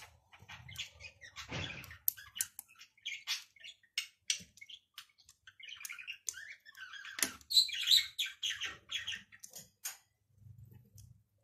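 Plastic Lego bricks clicking and rattling in a string of small sharp clicks as they are handled and pressed together. About halfway through, a run of higher chirping sounds joins in for a few seconds.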